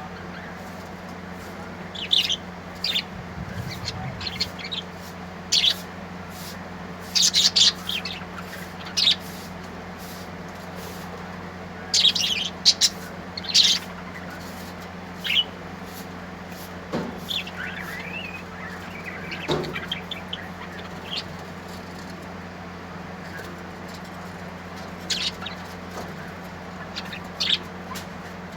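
Small birds chirping: short, sharp high-pitched chirps at irregular intervals, in clusters, over a steady low hum.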